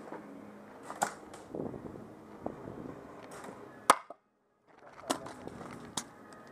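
Airsoft guns firing: a handful of separate sharp snaps, the loudest about four seconds in, with rustling of gear between them. The sound drops out completely for about half a second just after the loudest shot.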